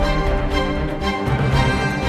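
Theme-style soundtrack music with a steady, full low end.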